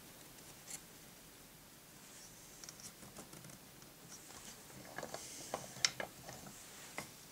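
Light clicks, taps and faint rubbing as hands loosen a small clamp and slide wooden wedge blocks, with one sharper click about six seconds in.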